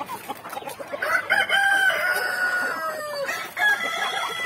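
Rooster crowing: one long call from about a second in that drops in pitch at its end, with a second crow starting near the end.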